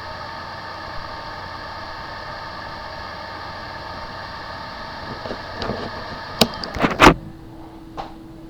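A small machine whirring steadily with several steady tones, then a few sharp clicks and knocks about six to seven seconds in, after which only a single lower steady hum remains.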